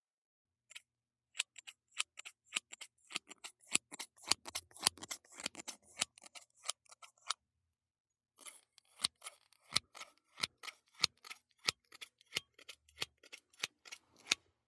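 Scissors snipping hair in quick runs of sharp snips, about three or four a second, recorded binaurally. The snipping pauses for about a second halfway through.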